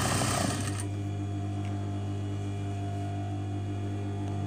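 Industrial lockstitch sewing machine stitching through fabric for about the first second, then stopping. A steady low hum carries on after it stops.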